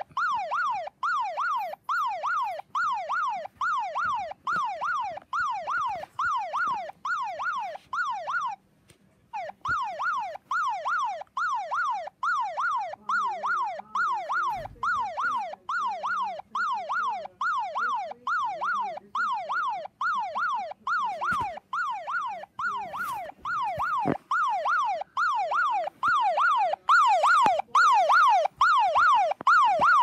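Police siren sound played through a mobile phone's speaker: a fast yelp, its pitch sweeping about twice a second. It cuts out briefly about nine seconds in, then starts again.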